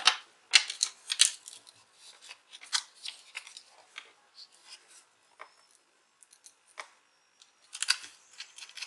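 Scattered small clicks, taps and light rubbing from hands fitting a new drive into a laptop's hard-drive bracket, with its plastic sheet and small mounting screws. The clicks come irregularly, with a busier cluster near the end.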